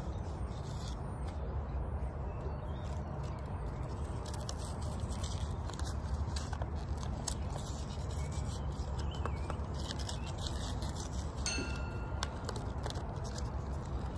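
Thin plastic bag crinkling and crackling in irregular small bursts as fingers work it open, over a steady low rumble. A brief high tone sounds once near the end.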